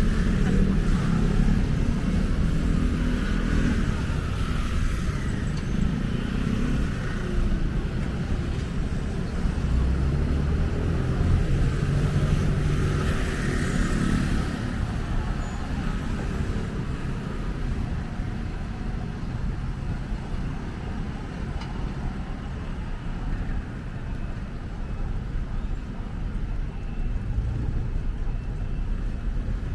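Outdoor street ambience: a steady rumble of road traffic with faint voices of passers-by.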